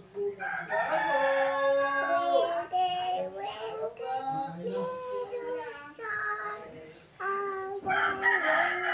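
A toddler girl singing to herself without clear words, in held notes that step and slide between pitches, with short breaks between phrases.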